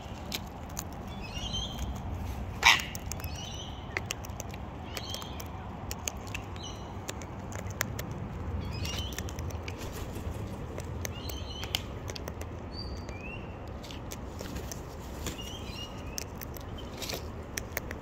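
Sulphur-crested cockatoo feeding from a bucket of mixed seed: scattered sharp clicks and cracks of its beak picking through and cracking seeds, with one louder snap about three seconds in. Faint high chirps from birds recur every second or two over a low steady rumble.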